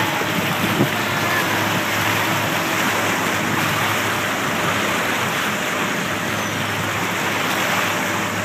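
Motorboat under way towing a tube: a steady engine hum under the rush of its churning wake water. A brief knock about a second in.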